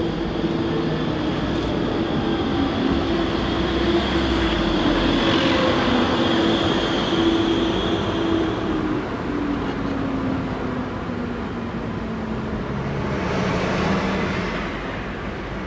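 Electric low-floor tram pulling into a stop and coming to a halt, with a steady electric whine under wheel and street noise. The whine drops in pitch after about nine seconds, and there is a short hiss near the end.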